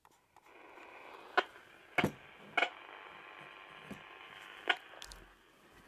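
Old AM radio tuned to 530 kHz, switched on and giving a steady hiss of static: background noise picked up in the band used for partial-discharge detection. A few sharp clicks sound over the hiss, which stops about five seconds in.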